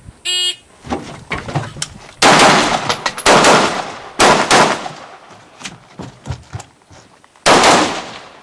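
A shot timer's start beep, then a rifle fired at irregular intervals: about half a dozen loud shots, some in quick pairs, with fainter cracks between them.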